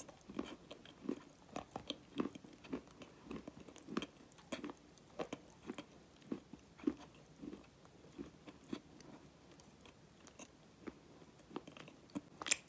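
Wet mouth sounds from the tongue and lips: irregular short clicks and smacks, one or two a second, thinning out in the middle, with one louder click near the end.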